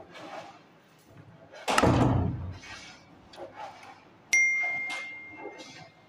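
About four seconds in, a sharp click is followed by a bell-like ding that rings on one pitch and fades over about a second and a half, typical of a subscribe-button sound effect. Earlier, a heavy thump comes about two seconds in, with lighter knocks around it.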